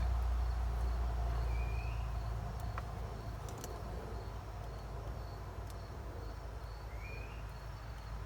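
Outdoor ambience of insects chirping steadily under a low, steady rumble, with two short rising chirps, one about two seconds in and one near the end.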